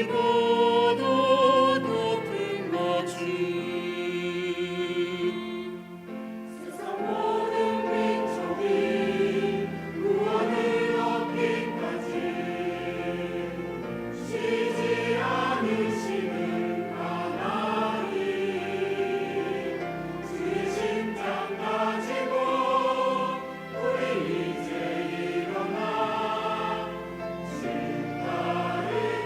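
A church choir singing an anthem in sustained, flowing phrases, with a short dip between phrases about six seconds in.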